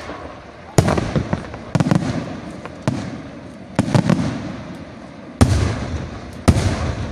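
Aerial firework shells bursting overhead: six loud bangs about a second apart, each trailing off in a rumbling echo.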